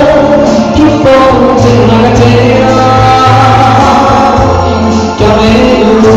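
A man singing into a microphone over a loud recorded backing track, with a steady bass line under the voice.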